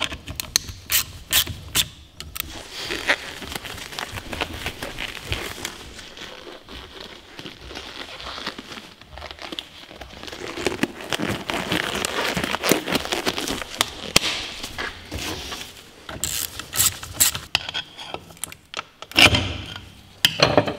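Hand work on a Peugeot Speedfight 2 engine's gearbox cover as it is taken off: a run of sharp clicks and metal knocks, then a long stretch of scraping and crackling, then more clicks and knocks near the end.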